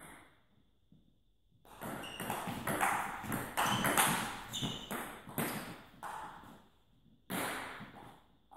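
Table tennis rally: the plastic ball clicking off the bats and bouncing on the table in quick succession, echoing in a sports hall. The rally starts after a short quiet spell and stops about a second before the end, with one louder burst just after it stops.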